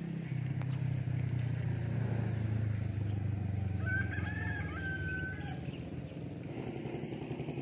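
A rooster crowing once, a drawn-out call about four seconds in that rises briefly and then holds, over a louder low steady drone.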